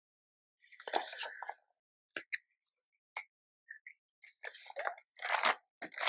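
Paper rustling and crinkling as it is handled, with a few light clicks, then a glue stick rubbed back and forth across paper near the end.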